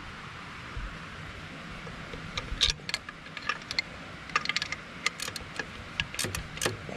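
Metal clicks and clinks of a hand wrench working the bottom alternator mounting bolt on a diesel engine, in short bursts of several quick clicks, with a few seconds between the bursts.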